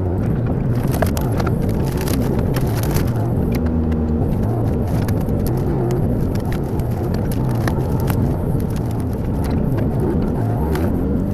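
Kubota KX018 mini excavator's diesel engine running steadily while working, with scattered sharp cracks and knocks throughout.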